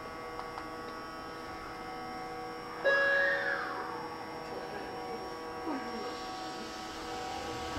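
Stationary Sanyo 6000 series electric train humming steadily with several held tones from its onboard electrical equipment. About three seconds in, a sudden louder sound briefly cuts in with a tone that rises and then falls.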